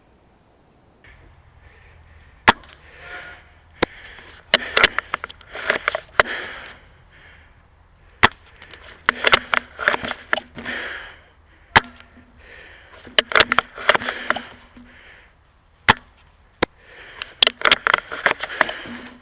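Handling and movement noise from a loosely mounted rifle scope camera: clusters of rustling every few seconds, broken by sharp clicks and knocks as the rig shakes.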